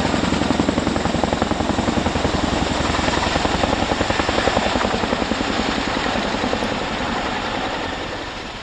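Boeing CH-47 Chinook tandem-rotor helicopter running, its rotor blades beating in a rapid, even pulse with a steady high turbine whine above it. The sound eases off over the last couple of seconds.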